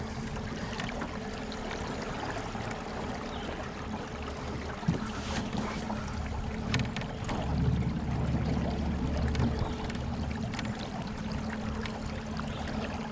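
Small aluminium jon boat under way: a steady motor hum with water trickling and lapping along the hull, and a single knock about five seconds in.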